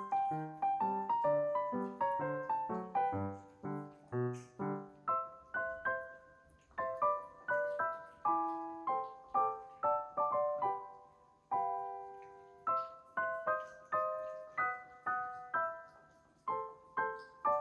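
Background piano music: a gentle melody of separate struck notes, with a bass line under the first few seconds.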